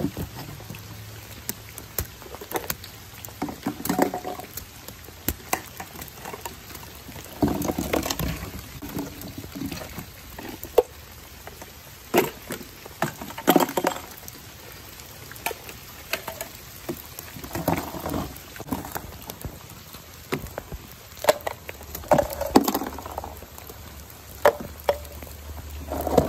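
Sharp plastic clicks, knocks and rattles of toy mini trash bins being grabbed, lifted and emptied into a plastic wastebasket, with a cluster of clatter every few seconds. Under it runs a steady patter of light rain on wet ground.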